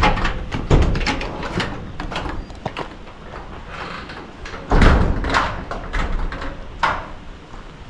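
Scattered knocks, clicks and thumps, with a heavy thud about a second in, the heaviest about five seconds in, and a sharp knock near the end.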